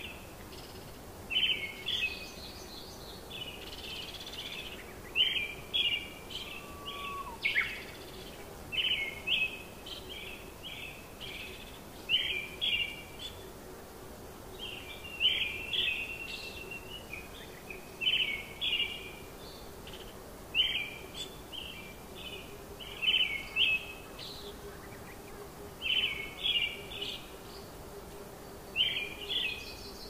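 Songbird singing short phrases of a few quick, high notes, repeated every two seconds or so, over a faint steady low hum and hiss.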